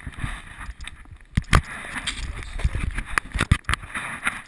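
Kick scooter rolling fast over wet asphalt: a steady rumble of wheels and road noise, broken by irregular sharp knocks and rattles.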